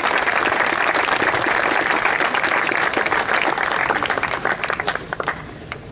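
Audience applauding, thinning out into a few scattered claps near the end.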